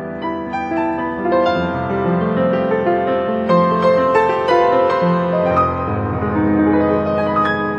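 Background piano music: single notes and chords struck one after another and left to ring.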